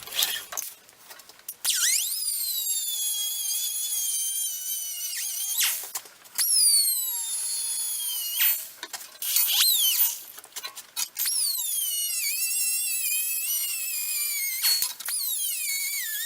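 Whiz wheel (a cut-off wheel) cutting a shape out of a metal bracket: a high-pitched whine in several runs with short pauses. The pitch jumps up each time it restarts and then sags as the wheel bites into the metal.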